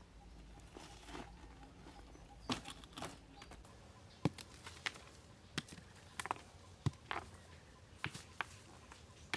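About a dozen sharp clicks and knocks, unevenly spaced, over quiet background noise.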